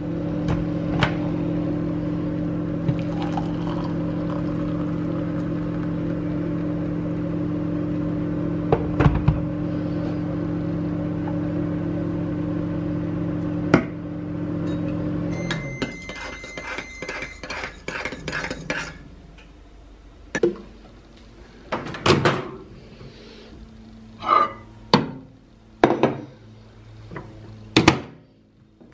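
Microwave oven running with a steady low hum, which stops about halfway through and is followed by its beeps. After that come separate clunks and clinks of dishes being handled.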